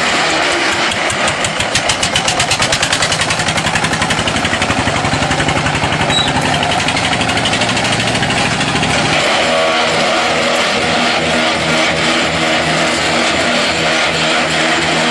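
Mobile block-making machine running, with a rapid even pulsing from about one second in that fades out around nine seconds, then steadier running with a low throb.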